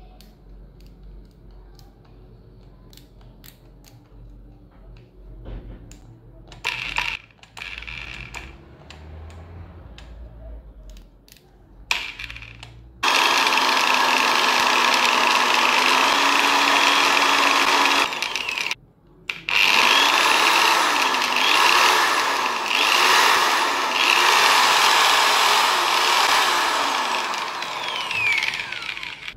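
Handling clicks and knocks, then a 700-watt electric drill starts and runs loudly, stops briefly after about six seconds, and runs again with its pitch wavering up and down.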